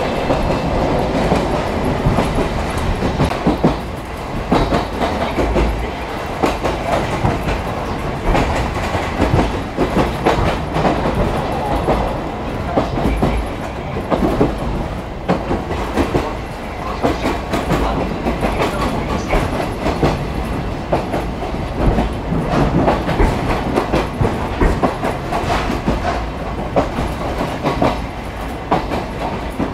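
Vintage varnished passenger coach on the move, heard from inside: a steady running noise with frequent knocks and rattles from the wheels and the car body.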